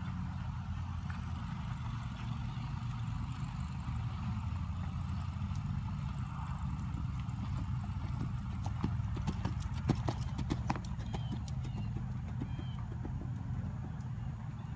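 Horse's hoofbeats at a canter on sand footing, a quick run of sharp strikes and thuds loudest about nine to eleven seconds in as it passes close, over a steady low rumble.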